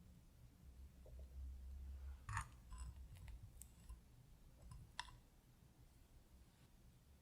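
Faint, sparse clicks and light taps of kitchen tools at work, two sharper ones about two and a half and five seconds in, over a low steady hum.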